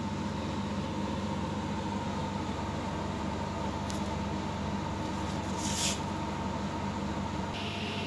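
A steady machine hum with fixed low tones fills the room. A short rustling hiss comes about six seconds in.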